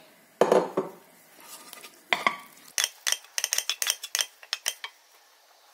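Wooden spatula stirring diced tomatoes into minced meat in a nonstick frying pan: a louder scrape about half a second in, then a run of quick scrapes and taps against the pan.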